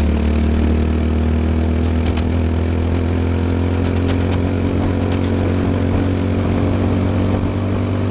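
Briggs & Stratton four-stroke single-cylinder kart engine running at steady, low revs, heard from the kart's onboard camera, with a constant hiss of wind and tyre spray off the wet track.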